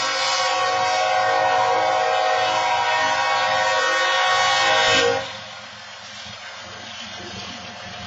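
BNSF diesel locomotive's air horn blowing one long chord as a grade-crossing warning, cutting off abruptly about five seconds in. After that comes the quieter, steady noise of the train rolling up to the crossing.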